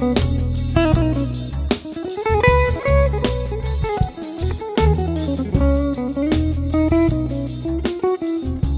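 Background music: a slow, blues-style electric guitar melody with sliding, bending notes over bass and drums.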